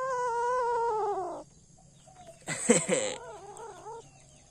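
A cat's long, drawn-out cry, then about two and a half seconds in a short, loud, harsh yowl followed by a quieter wavering cry.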